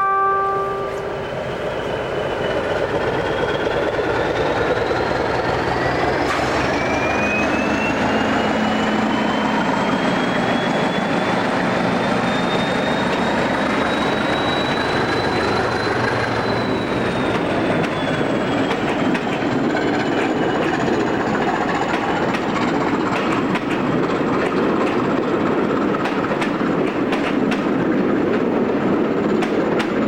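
Train running on the rails with a thin whine that climbs steadily in pitch for about fifteen seconds, then eases down a little. Clicks from the wheels over the track come in during the last third.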